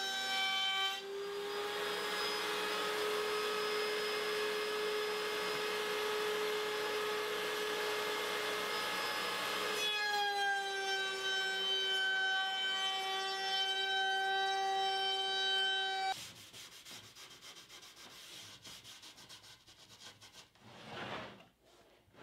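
Table saw running with a steady whine while ripping a maple board along the fence, the noise of the blade cutting the wood lasting about nine seconds before the saw runs on alone. The sound cuts off suddenly about two-thirds of the way through, leaving faint rubbing of a cloth on the board.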